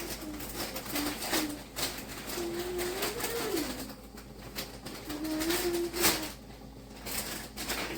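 Low cooing calls of a bird, several drawn-out notes that rise and fall in pitch, over a scatter of small clicks and knocks.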